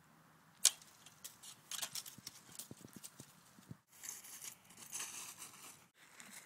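Footsteps crunching and rustling through dry fallen leaves and grass, in irregular steps, broken off abruptly twice by cuts.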